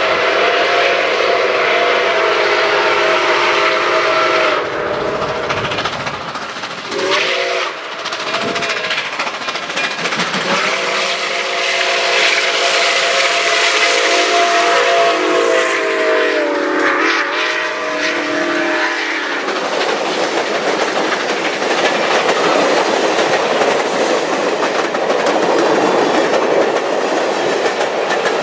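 Nickel Plate Road 765, a 2-8-4 Berkshire steam locomotive, blows its chime steam whistle: a long blast, a short one about 7 s in, then a long blast that sags in pitch as the engine passes close. The passenger cars then roll by with steady clickety-clack over the rail joints.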